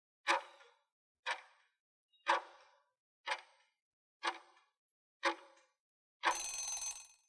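Countdown-timer tick sound effect, one sharp tick each second, six times, followed near the end by a longer noisy sound effect lasting about a second as the countdown runs out.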